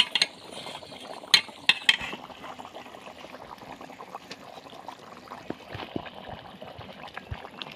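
Potato and fish curry boiling in a steel karai while fried katla fish pieces are slid in from a steel plate, with a few sharp clicks in the first two seconds.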